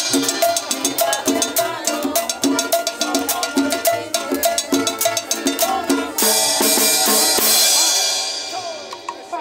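Cumbia band playing, with a steady drum and cowbell beat. About six seconds in the beat stops and a long ringing wash fades away as the song ends.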